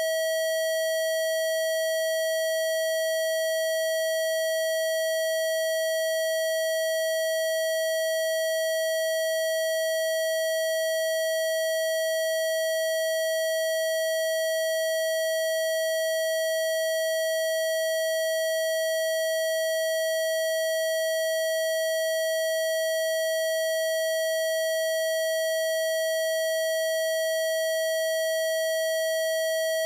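A continuous electronic test tone, a Rife-style "healing frequency", held at one steady mid pitch with no change in level. It is not a pure sine tone: fainter overtones sit above it.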